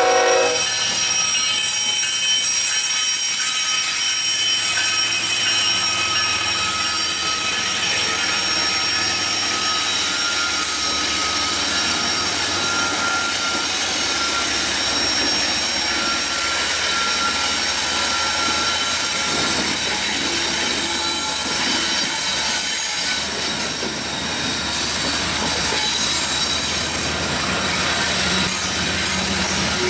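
Union Pacific freight train's diesel locomotives rolling past through a tight curve, with a steady rumble and the wheels squealing against the rail in thin high ringing tones. The tail of the locomotive horn cuts off right at the start.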